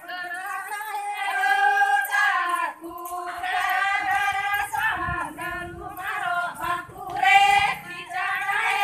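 Women singing a Banjara (Lambadi) devotional song unaccompanied, in long held phrases that break and restart every couple of seconds.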